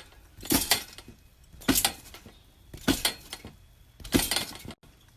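Four short clinking clatters, evenly spaced about a second and a quarter apart, with quiet between them.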